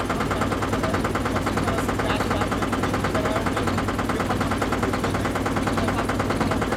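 Boat engine running steadily with a fast, even chugging rhythm and a low hum underneath.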